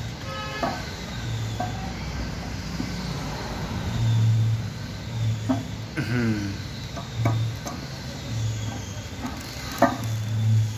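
Metal parts of a KG2 compressor being handled during assembly: scattered light clicks and knocks, with one sharper knock near the end. Under them runs a low hum that swells and fades every second or so.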